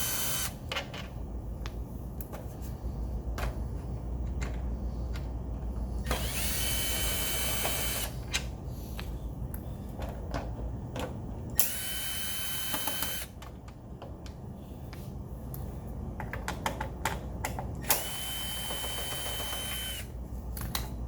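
Cordless drill/driver backing out belt-cover screws, running in bursts of a couple of seconds, each rising quickly to a steady whine. Between the bursts come short clicks and rattles of screws and handling.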